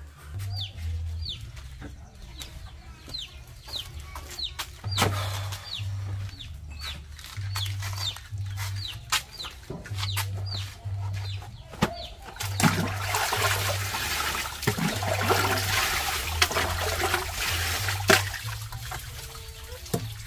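Chicks peeping in short falling cheeps, one or two a second, over water sloshing as clothes are scrubbed in a concrete washing basin. The sloshing is loudest from about twelve to nineteen seconds in, with a few sharp knocks.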